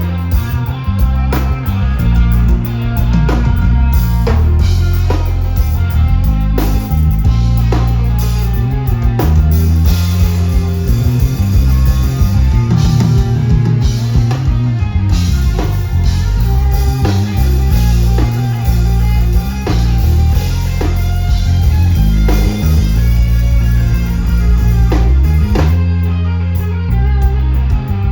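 Reggae band music with no vocals: a deep bass line under a drum kit and guitar, playing steadily.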